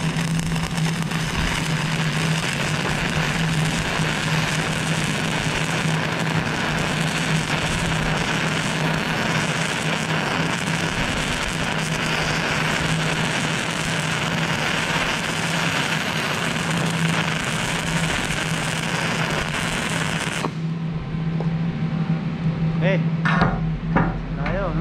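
Shielded metal arc (stick) welding with a 3.2 mm E6010 electrode at about 75 amps, the arc crackling and sputtering steadily as it runs a root pass in a mild steel plate groove. The arc cuts off about 20 seconds in, leaving a steady low hum.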